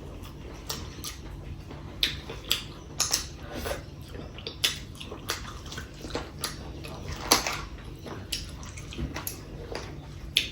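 Wet eating sounds of chicken curry and rice: chewing, with irregular lip smacks and clicks.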